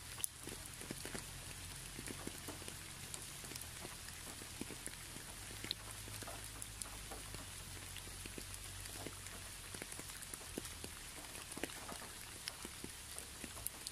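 Rain falling, with many scattered individual drops ticking irregularly over a steady hiss.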